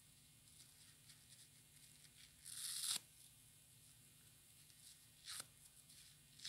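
Soapy kitchen sponge torn apart by hand, with a faint crackle of lather throughout. About two and a half seconds in there is one longer rip that grows louder and stops abruptly, and a shorter rip comes near the end.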